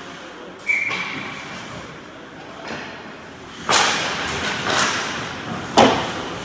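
Ice hockey rink sounds: sharp cracks of puck and sticks striking on the ice and boards, two loud ones in the second half, with a lighter knock about a second in.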